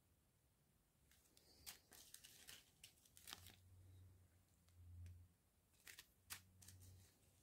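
Faint crinkling and ticking of small plastic bags of round diamond-painting drills being handled, in scattered short clicks. A faint low hum comes in about three seconds in.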